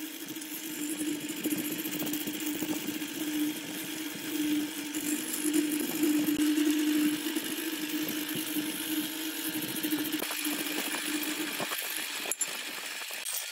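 Wood lathe spinning a wooden vase blank while a hand-held turning tool cuts into it: a steady hum with the hissing scrape of the cut over it. The hum drops out near the end, and a single click follows.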